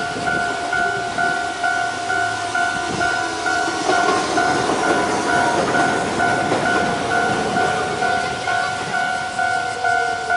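Japanese level-crossing warning bell (Toho Denki Kogyo alarm) ringing steadily in an electronic ding about three times a second, while a train passes, its rumble swelling midway and easing near the end.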